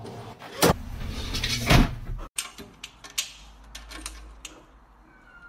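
Two loud thumps in the first two seconds, then light clicking and rattling of a wire cage door latch as a cat paws and bites at it.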